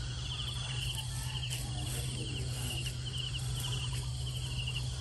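Insects trilling in a fast, steady pulse at one high pitch, over a low steady hum.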